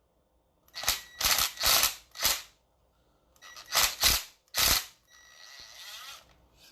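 Sharp snapping clicks from hand tools working on an electrical plug and its heavy cable: about eight short snaps, bunched in the first two and a half seconds and again around four seconds in.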